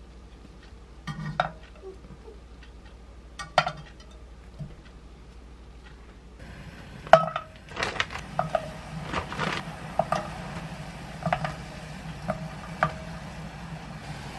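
A metal skimmer clinks against a saucepan twice as boiled potatoes are scooped out. Then, over the hiss of hot water in the pot, frozen shrimp are dropped in one after another, each landing with a splash and a light knock on the pan.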